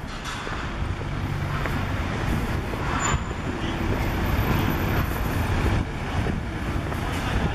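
Street traffic noise: a steady rumble of cars and other vehicles running past.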